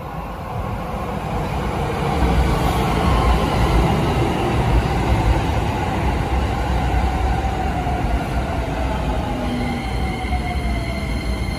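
Shin-Keisei Line electric commuter train pulling in and braking, wheels rumbling on the rails. Its whine falls slowly in pitch as it slows, and a steady high whine sets in near the end.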